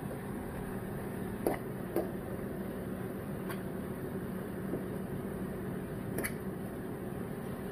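A spoon or spatula stirring ground turkey and vegetables in a cooking pot, knocking against the pot a few times, over a steady hum.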